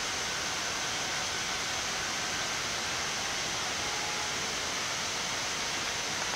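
Steady, even hiss of Boeing 787 flight-deck background noise, the rush of cockpit ventilation air and equipment fans with the engines at idle, unchanging throughout with a faint thin tone.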